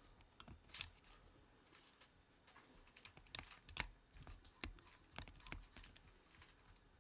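Faint, scattered plastic clicks from a Win60 HE keyboard's keys and keycaps being handled, about half a dozen spread irregularly over several seconds.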